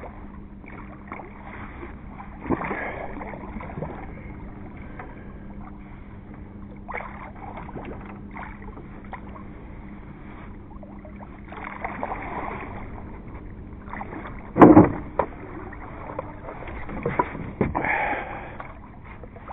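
A large wels catfish splashing and thrashing against the side of a small boat while it is landed by hand, with knocks and scrapes on the hull. There is one sudden loud thump against the boat about fifteen seconds in, and more knocking and sloshing near the end as the fish is hauled aboard.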